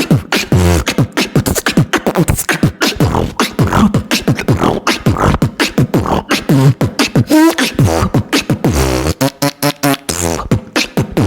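Human beatboxing: a fast, continuous run of mouth-made drum hits and clicks mixed with short voiced sounds that glide down in pitch.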